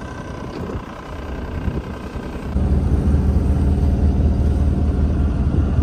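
Sailing yacht's auxiliary engine running steadily while the boat motors with its sails furled, a low even hum that gets clearly louder about two and a half seconds in.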